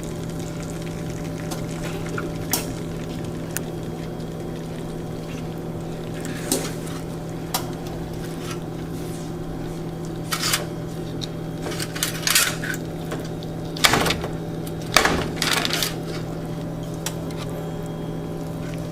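Knife clicking and scraping against a baking dish a dozen or so times, in short bursts with the loudest near the end, over a steady low hum.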